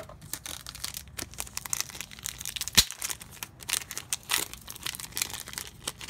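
Trading-card booster pack wrappers crinkling and tearing as a pack is opened, a dense irregular crackle with one sharp snap a little under three seconds in.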